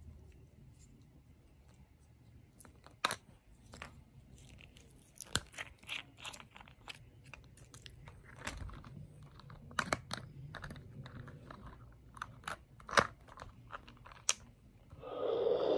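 Hard plastic toy kyber crystals and a Sith holocron toy handled and fitted together: scattered small clicks, taps and rubbing, with a few louder sharp clicks. Just before the end a louder steady hiss starts as the holocron begins its sound effect.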